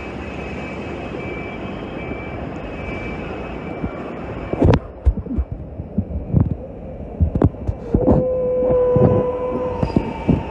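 Suburban electric train arriving at a station platform. A steady rumble gives way about halfway to a run of irregular clunks, and a steady high whine sets in for the last couple of seconds.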